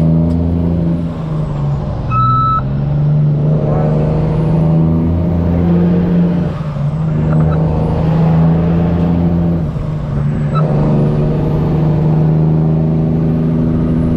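Semi truck's diesel engine running at low speed, a steady drone whose pitch shifts a few times as the truck moves through the lot, with a faint high whine rising and falling. A short beep sounds about two seconds in.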